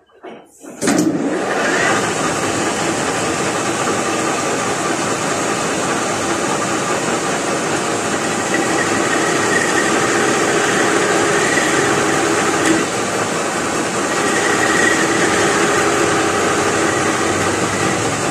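A metal lathe switches on about a second in, then runs steadily with its four-jaw chuck spinning while the cutting tool turns the end of a metal workpiece. A loud, even machine noise with a held hum and a faint whine.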